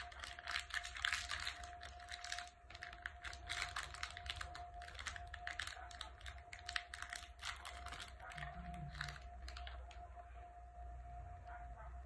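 Crinkly plastic chocolate-bar wrapper being torn open and peeled off a 5 Star bar by hand: a dense run of crackles and rustles that thins out about three-quarters of the way through.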